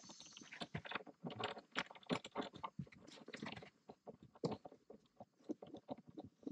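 Faint, irregular small clicks and knocks, scattered unevenly.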